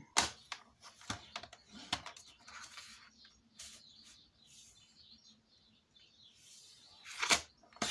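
Paper trimmer's sliding cutting head drawn along its rail through a sheet of white card, with small clicks and paper rustling as the card is moved on the trimmer, and a louder swish near the end.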